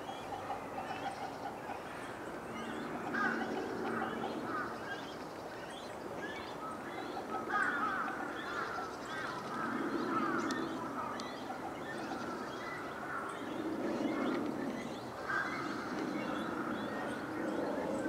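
Waterfowl calling at intervals among many short chirps from small birds.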